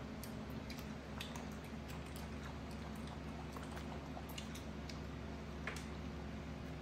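Faint scattered wet clicks and smacks of a young macaque biting and chewing small green fruits, over a steady low hum.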